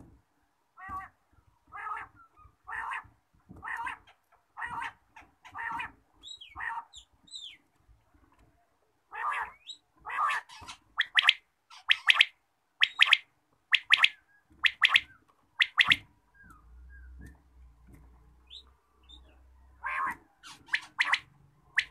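Quails (batair) calling: short call notes about once a second, then quicker clusters of sharp, louder notes, with a few thin gliding whistles in between.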